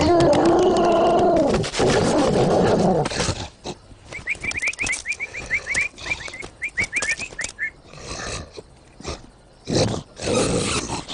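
Cartoon animal sound effects: a long pitched cry that sinks toward its end over the first three seconds, then a quick run of high chirps, then a lion's roar near the end.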